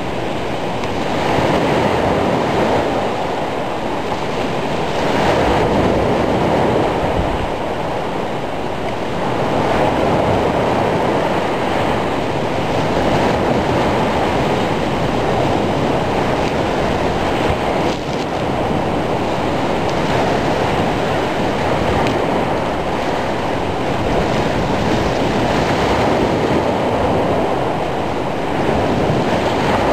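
Rough sea in a gale: waves breaking and surf rushing, with wind, swelling and easing every few seconds.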